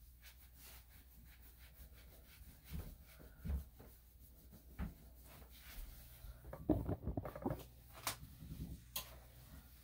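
Terry towel rubbing a wet small dog's coat during towel-drying, with scattered dull knocks from handling on the grooming table. A cluster of knocks comes about seven seconds in and is the loudest part, followed by two sharp clicks.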